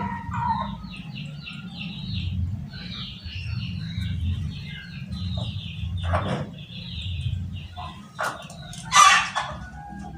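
Bangkok game hen clucking in a run of short calls while she is held and dosed with crushed garlic, with one louder call about nine seconds in.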